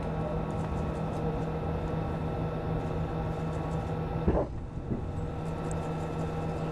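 Steady noise and low hum inside the Soyuz crew cabin during second-stage powered flight. About four seconds in, a short knock and a brief dip in the noise fall at the moment of payload shroud jettison, with a smaller knock half a second later.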